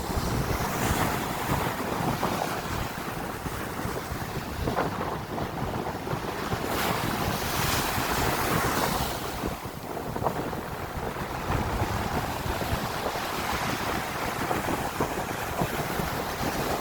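Sea waves breaking and washing over shoreline rocks, with wind rumbling on the microphone; a louder wash of surf comes about halfway through.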